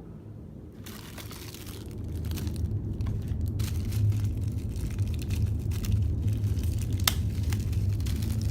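Plastic packaging crinkling and rustling as flashlight accessories are unpacked by hand. There is a low handling rumble underneath and one sharp click about seven seconds in.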